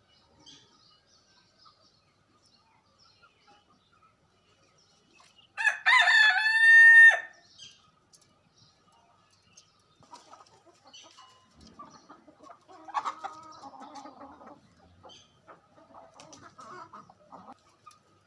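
A rooster crows once, loud and lasting about a second and a half, about six seconds in. It is followed by quieter, rough clucking chicken calls through the second half, with faint bird chirps in the background.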